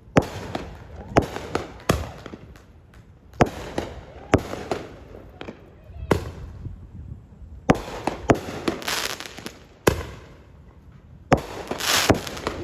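Consumer fireworks going off: an irregular string of sharp bangs, a dozen or more, with stretches of dense crackling about eight seconds in and again near the end.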